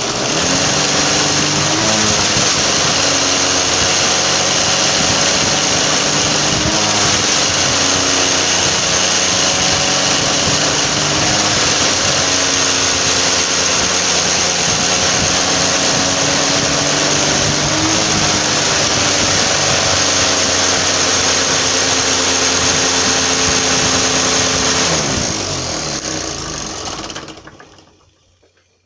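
Homemade box fan driven by a weed whacker (string trimmer) motor, switching on abruptly and running loud and steady with a slightly wavering pitch, then spinning down and fading out over the last few seconds. The builder finds it powerful but a little loose and imbalanced.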